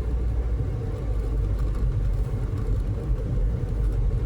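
Steady low rumble of a car driving, heard from inside the cabin: engine and tyre noise with no distinct events.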